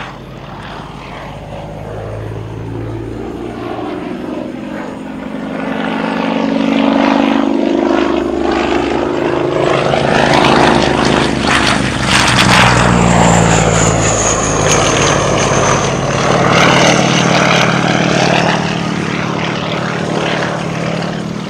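Pitts Model 12 aerobatic biplane's nine-cylinder radial engine and propeller running hard during a pass. The sound grows louder over the first half. Its pitch sweeps down as the plane goes by about twelve seconds in, and it eases off a little near the end.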